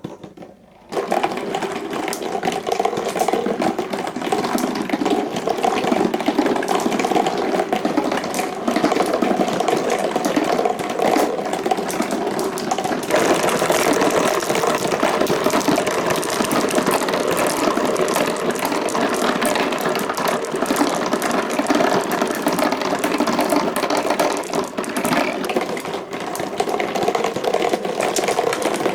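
A large number of glass marbles rolling and clacking together along marble-run tracks, a dense continuous clatter. It starts suddenly about a second in and grows brighter about halfway through.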